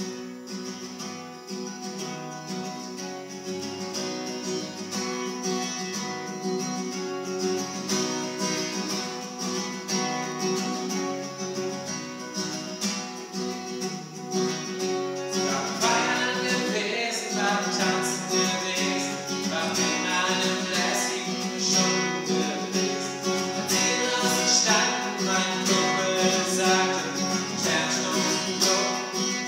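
Acoustic guitar playing a song, with a singing voice joining in about halfway through.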